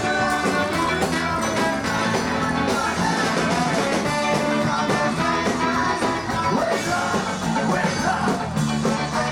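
A ska band playing live, with singing.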